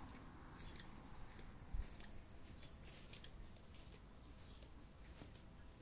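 Faint outdoor ambience with short, high-pitched chirps repeating at uneven intervals, a soft low thump about two seconds in and a sharp click about three seconds in.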